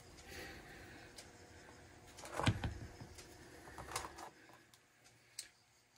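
Faint clinks and knocks of metal brake parts being handled at the rear caliper bracket, with one louder knock about two and a half seconds in and a smaller one about a second later.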